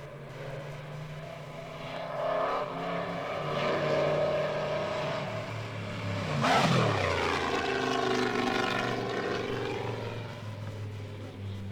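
Mercedes-Benz Grand Prix racing car's engine running at speed and rising in pitch, then passing close by about six and a half seconds in with a sharp drop in pitch before carrying on at a lower note.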